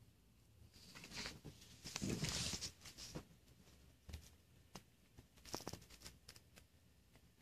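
Soft rustling and scuffing as a cat and a border collie puppy shift about on a fabric recliner, loudest about two seconds in. A few light scattered clicks follow.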